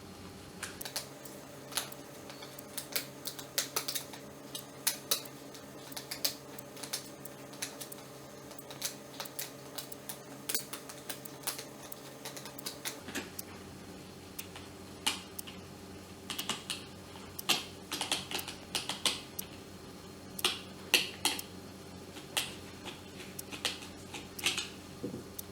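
Irregular small clicks and taps of a screwdriver on plastic as the handle of a plastic travel kettle is taken apart, over a steady low hum.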